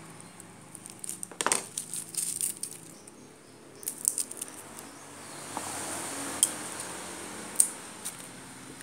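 Metal kitchen utensils clinking and knocking against cookware in a series of sharp clinks, with a soft hiss swelling in the second half.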